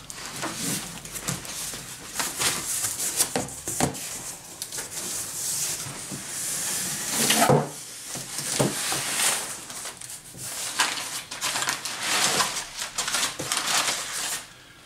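Cardboard box flaps being pulled open and scraping, then crumpled brown paper packing rustling and crinkling as it is pulled out of the box.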